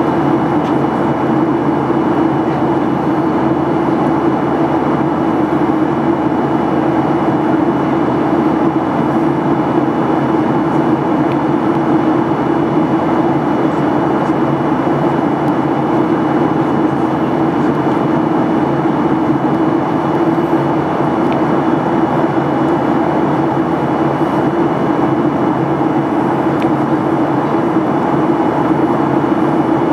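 Steady cabin noise inside a Boeing 737-800 in flight: the even drone of its CFM56-7B turbofan engines and the air rushing past the fuselage, with a strong low hum that never changes.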